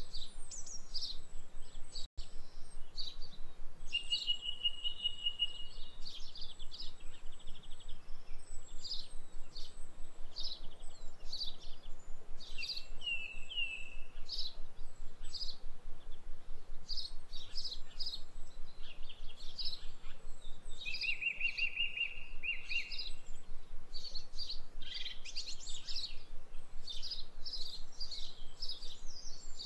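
Small birds chirping over and over, with a fast high trill twice.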